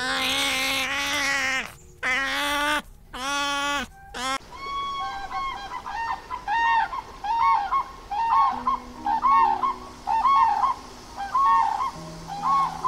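A grey crowned crane gives a run of short honking calls, repeated over and over about once or twice a second. They start about four seconds in, after a few seconds of loud, high, wavering cries.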